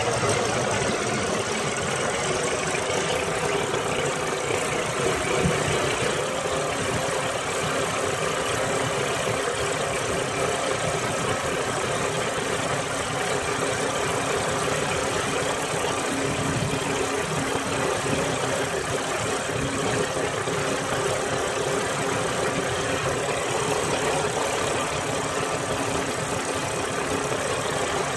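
Engine of a motorized outrigger boat (bangka) running steadily while the boat is under way, a constant drone with an even hiss over it.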